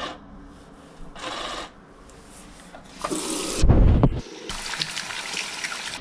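Hands being washed at a bathroom sink: a short rubbing sound about a second in, a thump a little past the middle, then the mixer tap running steadily into the basin.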